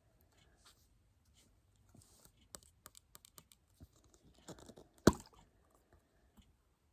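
Plastic cosmetic packaging and a cream jar being handled: faint scattered crackles and small taps, with one sharper click about five seconds in.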